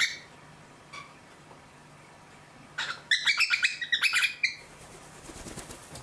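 Cockatiels chirping: a faint chirp about a second in, then a quick run of loud, high chirps about three seconds in. Near the end, a cockatiel's wings flap in rapid beats as it flies in to land.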